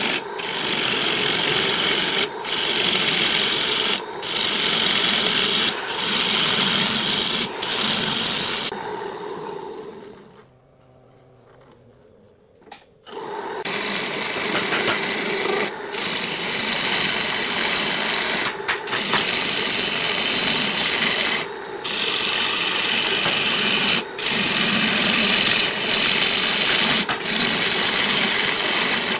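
A lathe gouge cuts into a spinning wooden disc, shearing off long ribbon shavings with a loud, steady rasping hiss. The hiss breaks briefly every couple of seconds as the tool is drawn back for the next pass. About a third of the way in it goes almost quiet for about three seconds, then the cutting resumes with a faint high whine over the rasp.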